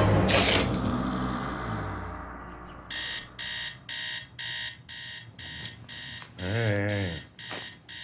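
Electronic alarm clock beeping, about two beeps a second, starting about three seconds in after a louder sound fades away. Near the seventh second a short, low, wavering sound cuts in over the beeps.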